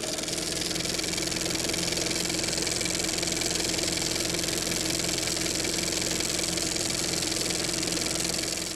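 Off-road vehicle engine running steadily at a held speed.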